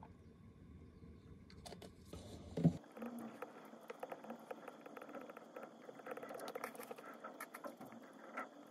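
A plastic water bottle set down on the desk with a knock a little under three seconds in, followed by the light, irregular tapping and clicking of a stylus writing on a tablet's glass screen.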